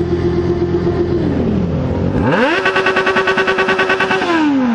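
Yamaha XJ6 N motorcycle's 600 cc inline-four engine revved hard. A held rev drops away about a second in; about two seconds in a second rev climbs quickly, holds high with a rapid fluttering pulse, and falls back near the end.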